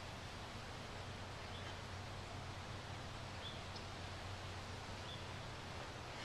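Steady outdoor background hiss with a low hum, and a faint short bird chirp repeating about every second and a half.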